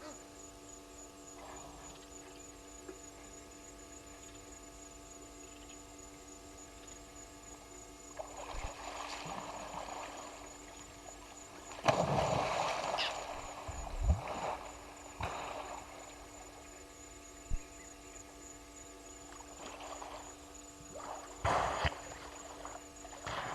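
Hippo splashing and sloshing in water in several irregular bursts, the loudest about halfway through.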